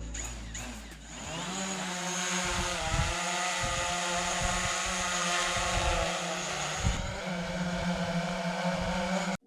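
Quadcopter drone's electric motors and propellers spinning up with a rising whine over the first two seconds, then a steady high buzz. It cuts off suddenly at the end.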